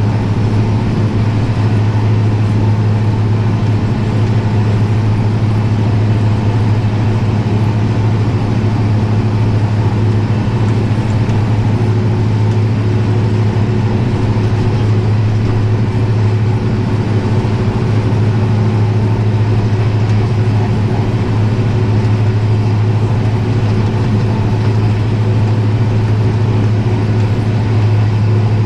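Tractor engine running at steady revs, a constant deep drone that does not change.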